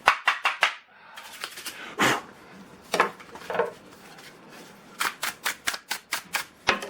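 Sharp clicks and taps from a chainsaw's housing and parts being handled while the housing is cleaned out: a few at the start, single knocks about two and three seconds in, then a quick run of clicks near the end.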